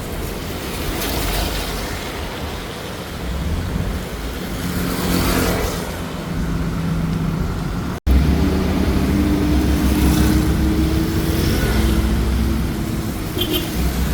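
Street traffic: vehicle engines running close by, with a steady low engine hum that grows louder after a brief break in the sound about eight seconds in.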